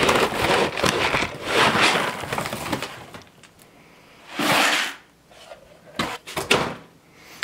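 A plastic scoop digging into dry chicken feed and pouring it into a bucket. Rattling rushes of grain fill the first few seconds, another pour comes about halfway through, and a few clicks follow near the end.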